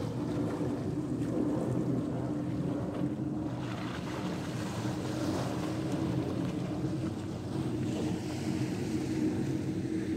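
A boat's engine running with a steady low hum, mixed with wind noise on the microphone.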